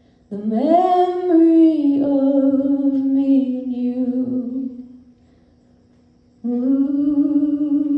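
Solo female voice singing a cappella, with no words recognised: a phrase that rises onto a long held note and steps down to another, then after a short pause a second long held note.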